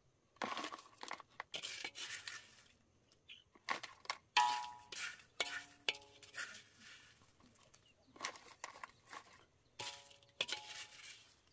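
Bamboo chopsticks scraping and clicking against a wok, stirring and lifting sugar-coated jam strips through the loose sugar, in three bursts of clattering. Some knocks on the wok ring briefly.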